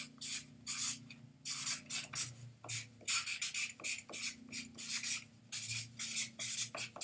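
Sharpie marker writing block letters on a paper pad: a quick, uneven run of short scratchy strokes, one after another.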